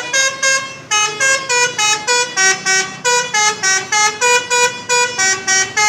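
Indonesian bus 'telolet' horn, a multi-tone musical horn, playing a long melody of short chord-like notes at about four notes a second.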